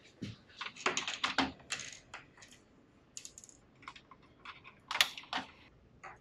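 Irregular light plastic clicks and taps as LC APC fibre pigtail connectors have their dust caps pulled off and are pushed into the enclosure's adapters, with one louder click about five seconds in.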